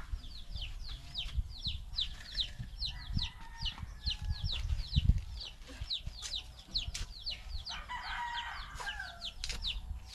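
Backyard chickens: a steady run of short, high, falling peeps, about two or three a second, with a longer, lower chicken call about eight seconds in. Low thumps and rumble underneath, loudest about five seconds in.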